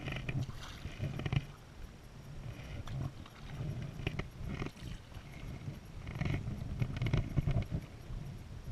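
Stand-up paddleboard paddle strokes in calm lake water: a splash and dripping with each stroke, in clusters every couple of seconds, over a low rumble.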